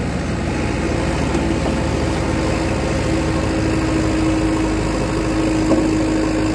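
Heavy diesel engine running steadily, with a steady hum that grows stronger about two seconds in.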